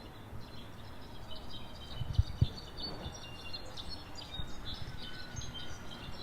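Several small birds calling at once, a busy mix of short, high chirps and chime-like notes, with a few low knocks from the microphone about two seconds in.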